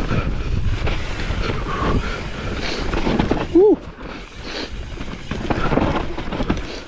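Mountain bike clattering and rattling down a rough trail at speed, with tyre noise and wind on the camera. About halfway through there is a short, loud squeal that rises and falls, and the clatter eases briefly just after it.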